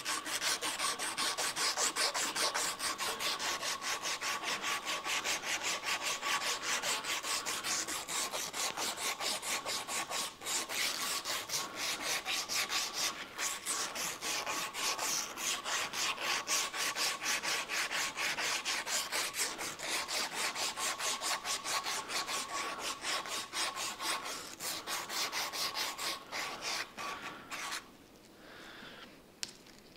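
Strip of 240-grit sanding belt drawn quickly back and forth around a brake master cylinder piston clamped in a vise, polishing its running surfaces: an even rhythmic rasping, several strokes a second, with two brief breaks. It stops a couple of seconds before the end.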